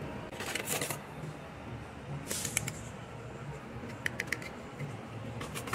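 Hard plastic and metal electronic parts clicking and rattling as they are handled and sorted by hand, in short scattered clusters of clicks, including a quick run of three clicks about four seconds in.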